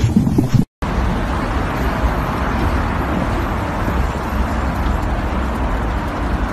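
Pet grooming blow dryer blowing in a steady, loud rush, starting about a second in after a short break.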